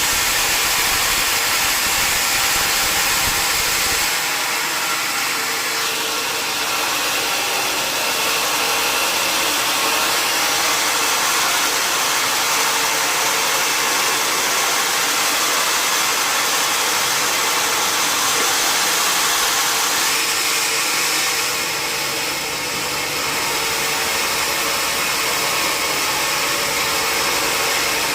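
Sawmill machinery running steadily: a loud, dense whirring noise with a faint steady hum. A low rumble underneath stops about four seconds in.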